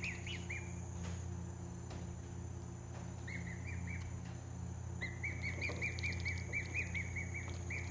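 Black swan cygnet peeping while it feeds: runs of short, high calls, about five a second. One run ends under a second in, a brief run comes about three and a half seconds in, and a longer run starts about five seconds in.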